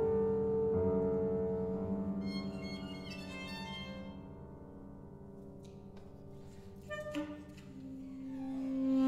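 Chamber trio of violin, saxophone and piano playing a slow contemporary piece: long held notes fade to a quiet passage, a few high notes sound in between, and a single held note swells loud near the end.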